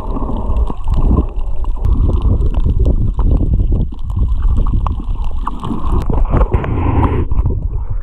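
Underwater sound picked up by a waterproof action camera: a dense, muffled rumble and sloshing of water against the housing, with scattered small clicks.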